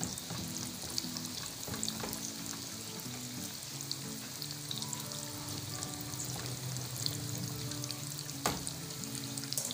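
Coiled maida-dough pakwan deep-frying in hot oil over a low flame: a steady sizzle and bubbling, with a few light clicks as a slotted spoon moves the pieces in the pan.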